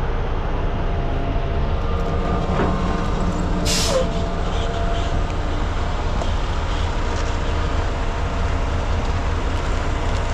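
Heavy diesel truck and equipment engines running steadily with a low rumble, and a brief sharp hiss of air about four seconds in.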